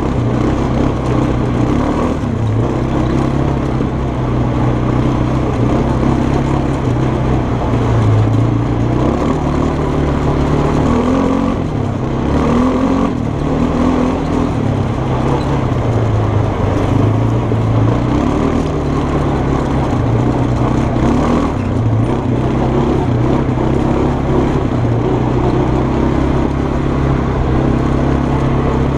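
Kymco 300 quad's engine running under way on a dirt trail, its revs rising and falling steadily with the throttle.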